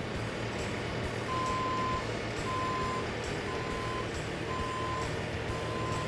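Bobcat skid steer loader reversing: its backup alarm beeps in a steady single tone about once a second, starting about a second in, over the steady running of the machine's diesel engine.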